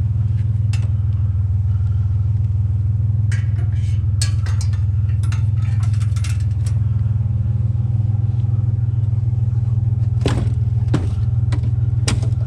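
Truck engine and road noise droning steadily while driving, with scattered clicks and rattles in the middle and a few sharper knocks near the end.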